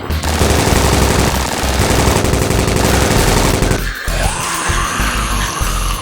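Rapid automatic gunfire over loud action background music for about the first four seconds, then the music carries on alone.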